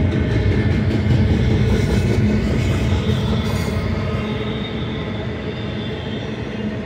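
Loaded double-stack intermodal freight cars rolling past, a steady rumble of steel wheels on rail that eases off a little over the last few seconds.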